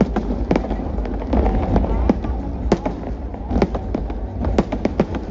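New Year fireworks display: an irregular run of sharp bangs, several a second at times, over a steady low rumble.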